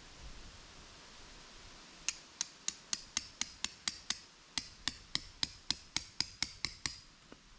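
Tent stake being driven into the ground with a peg hammer: about twenty quick blows, roughly four a second, with a brief pause midway. Each blow is sharp and rings briefly.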